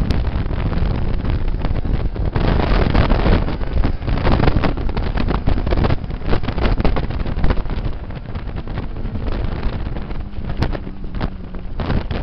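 Heavy wind buffeting on the microphone of a camera mounted on a motorcycle at speed, with the bike's engine running underneath. The wind noise eases somewhat past the middle, then rises again near the end.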